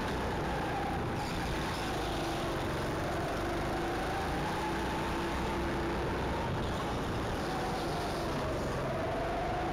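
Go-kart engine heard from on board the kart, its pitch rising and falling as the throttle opens and eases, and climbing again near the end, over a steady rumble.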